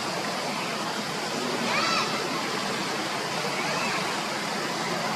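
Steady rushing noise, with a young monkey's short high squeaky calls, each rising and falling in pitch: one about two seconds in and a fainter one near four seconds.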